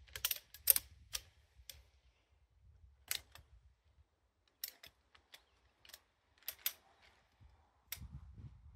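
Sharp, irregular clicks and clacks of a Nemo Moonlite Elite camp chair's frame poles being fitted together, several in quick succession in the first second or so, then scattered single clicks.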